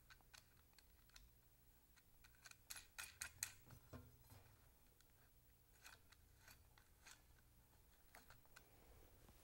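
Faint, scattered clicks and light taps of small metal parts being handled on a steel saw blade as a clock mechanism's nut is fitted by hand, with a quick run of clicks about three seconds in.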